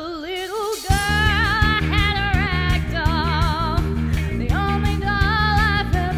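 A woman's voice sings a pop-rock song in long held notes with vibrato. A band with electric guitar, bass and drums comes in about a second in.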